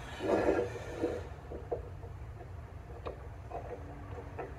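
Bevel gearbox housing scraped and shifted on the workbench, then light metallic clicks and taps as a gear is worked loose inside the housing, over a steady low hum.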